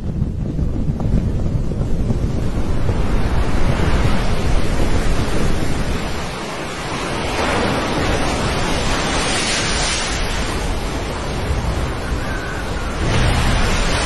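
Strong wind buffeting the microphone over crashing sea waves. In the second half, heavy seas break against a ship's side and surge up as spray, in two loud rushes, one around the middle and one near the end.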